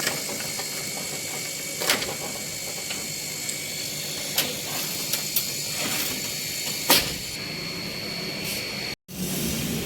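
Small CNC laser cutting machine running: a steady hiss with a thin high whine, broken by a few sharp clicks. It cuts out abruptly about nine seconds in and comes back with a lower hum.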